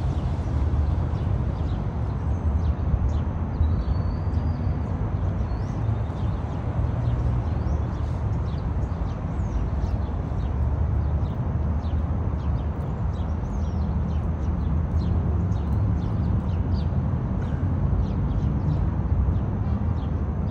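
Steady low rumble with many faint, short, high chirps of small birds throughout.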